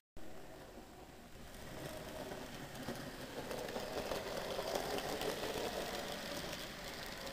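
N gauge model train, a Castle class steam locomotive model hauling coaches, running through the station: a small electric motor whirring with wheels rattling on the track, growing louder as it approaches and loudest as it passes about five seconds in.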